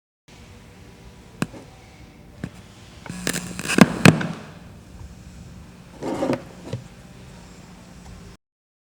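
Recorded thunderstorm sound effect from a picoSTORM lightning controller: sharp cracks of thunder over a steady low hiss. Two single cracks come first, then a cluster of the loudest cracks around the middle and another burst near the end; the track starts and cuts off abruptly.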